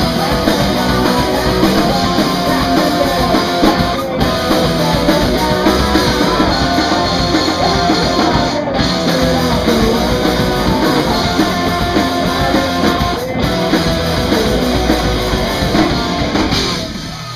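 Live rock band playing loud: electric guitar, drums and a lead singer at the microphone. The music breaks off near the end.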